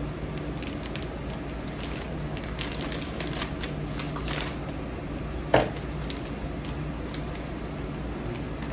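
Scissors snipping across the top of a plastic crisp packet, then the packet crinkling as it is pulled open and handled, with one loud sharp crackle about five and a half seconds in.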